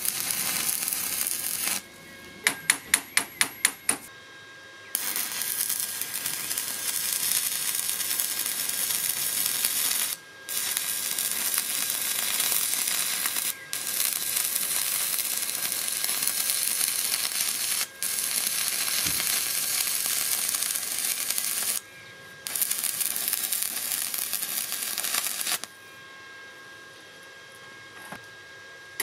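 Stick-welding arc from a Parkside PISG 80 A2 inverter welder at its 80 A maximum, a 2.5 mm electrode crackling and hissing as it burns along 6 mm steel plate. About two seconds in the arc stops and there is a quick run of about eight sharp clicks, then it runs on in long stretches, cutting out briefly three or four times, and stops near the end.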